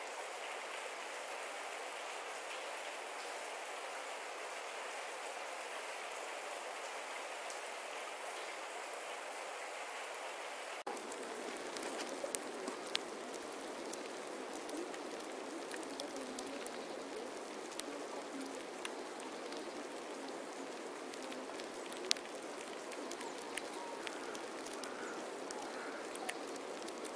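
Rain field recordings: a steady even hiss of rainfall, replaced about 11 seconds in by a different rain recording that is fuller and reaches lower, with many separate sharp drop hits standing out.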